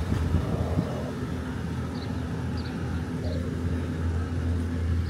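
A vehicle running with a steady low hum, amid street ambience.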